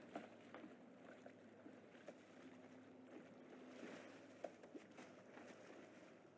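Faint water in a pond sloshing and lapping, with scattered small splashes and drips, over a steady low hum.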